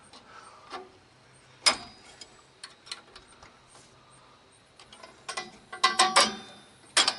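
Metal clicks and clinks of a brake spring tool working a shoe return spring onto the anchor post of a 2000 Chevy 3500's rear drum brake: a sharp click about a second and a half in, scattered light ticks, then a quick cluster of ringing clinks near the end and one last sharp click.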